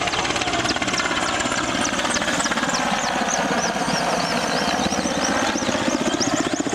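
Mi-8 military helicopter passing low overhead, its main rotor beating in a fast steady rhythm over the engine noise.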